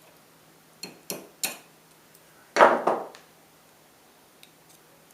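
Hand tools working thin tuna-can tin: three quick sharp metal clicks about a second in, then a single louder clank.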